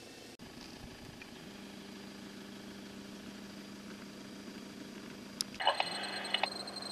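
Off-road 4x4 engines running at low revs as the vehicles crawl up a grassy slope, a faint steady drone with a low hum, broken by a louder burst of noise near the end.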